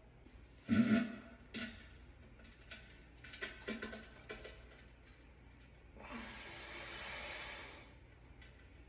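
Men farting: a short, loud fart about a second in, a smaller one just after, a few brief sputters a couple of seconds later, then a longer airy, hissing fart lasting about two seconds.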